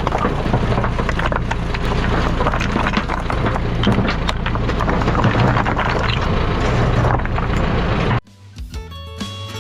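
Caterpillar 205LC excavator's diesel engine running hard, with scattered clanks and scraping over a steady low drone. It cuts off abruptly about eight seconds in, and guitar background music takes over.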